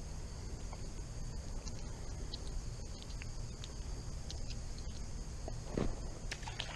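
Steady high-pitched chorus of insects at the creek, over a low background rumble, with a few faint ticks and a short noise about six seconds in.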